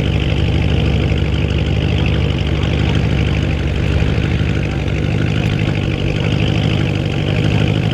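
Audi RS6 C8's twin-turbo V8, with its petrol particulate filter deleted, idling with a steady deep rumble.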